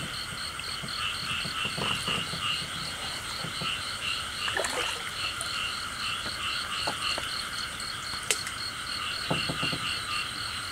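Frogs calling in chorus, a fast, even pulsing croak that runs without a break, with a few faint clicks over it.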